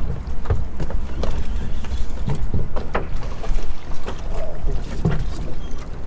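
Water slapping against a small boat's hull, over a low, steady wind rumble, with scattered irregular knocks.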